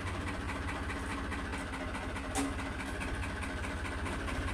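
Tractor diesel engine running steadily at low revs, pulling a trolley loaded with paddy sheaves, with one short clank about halfway through.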